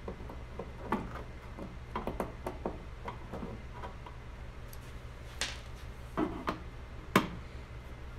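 Irregular clicks and taps of a screwdriver and hands working screws out of a TV's plastic back cover, with a sharper knock about seven seconds in. A steady low hum runs underneath.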